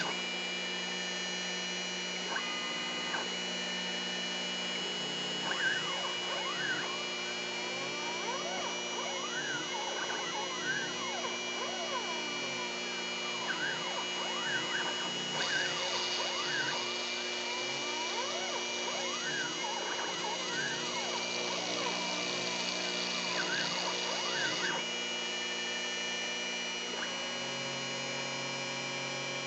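Stepper motors of a homebuilt three-axis CNC router whining in repeated rising-and-falling pitch sweeps as the axes speed up and slow down between moves, over a steady hum with high steady tones.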